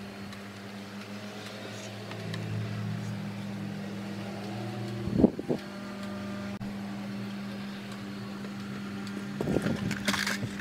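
Steady low mechanical hum, like a fan or motor, with a single knock about five seconds in and a short burst of handling clatter near the end.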